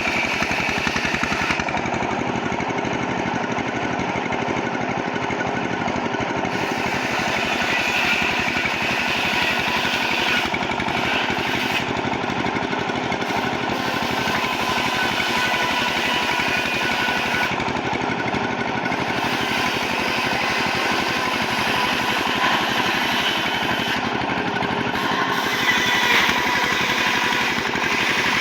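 Sawmill machinery running steadily with a fast, even rattle that does not let up.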